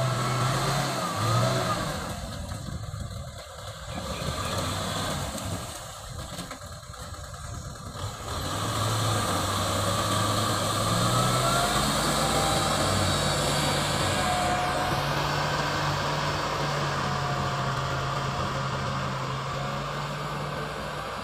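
Kubota M6040SU tractor's diesel engine running while plowing, its pitch stepping up and down; it drops quieter twice in the first eight seconds, then runs steadily louder.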